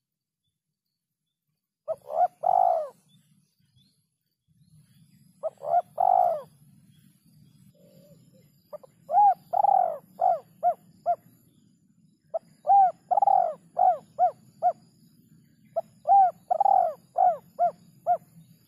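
Spotted dove (terkukur) cooing: about five phrases, the first two short, the later ones ending in a run of short, quick coos.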